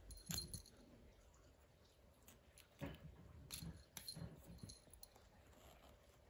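A kitten playing with a ruler: a few faint, scattered knocks of paws and teeth on the ruler and the couch cushion, with the small bell on its collar giving brief faint jingles.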